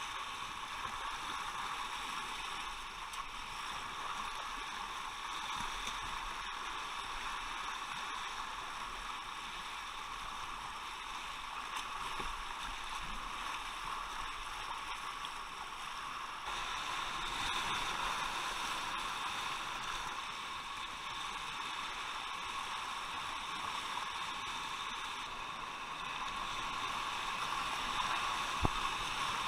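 Steady rush of river water, a constant hiss without any pitch, getting a little louder about halfway through. A single sharp click near the end.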